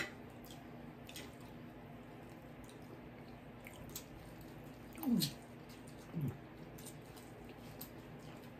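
Quiet eating at the table: faint chewing and mouth clicks. About five and six seconds in come two short low vocal sounds, each falling in pitch, like an eater's "mm".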